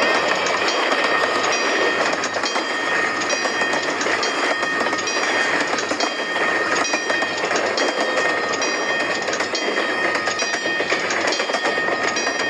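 Train rolling past, its wheels clattering over the rail joints, with a steady high ringing squeal over the rumble.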